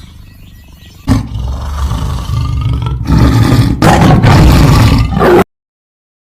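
Big cat roaring: a faint start, then a loud roar from about a second in, with two brief breaks. It is loudest in its second half and cuts off suddenly near the end.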